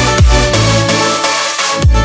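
Background electronic dance music with a kick drum beating about twice a second; the kick and bass drop out for about a second midway, then the beat comes back near the end.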